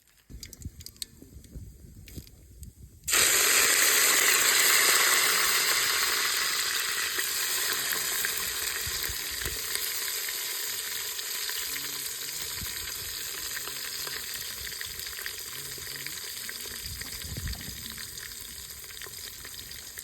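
Food dropped into hot oil in a cooking pan, sizzling loudly from about three seconds in and slowly settling to a steady, quieter frying hiss. Before it, a few light knocks of handling.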